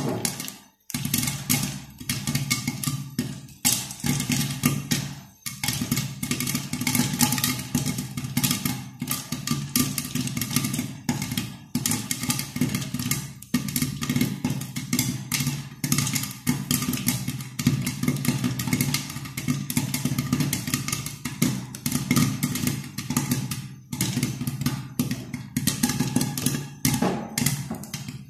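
Popcorn popping in a covered kadhai with a glass lid: a dense, rapid crackle of pops over a low steady hum, with the pan and lid rattling as they are shaken by the handles. The popping thins out briefly near the start and again a few times.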